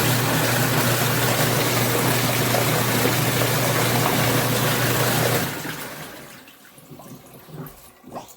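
Portable twin-tub washing machine running, a steady motor hum under a rush of churning water, which dies away about five and a half seconds in.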